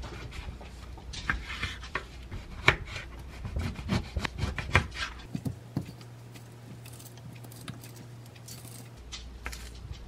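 Kitchen knife cutting an orange on a wooden cutting board: a series of sharp knocks as the blade hits the board, with rubbing slices through the rind. Quieter cutting follows in the second half as the peel is sliced off the wedges, with a few light ticks.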